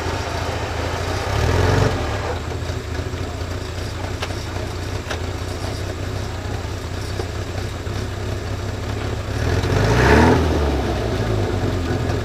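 Suzuki Sidekick 4x4's engine idling, revved up briefly twice: about two seconds in and again near the end.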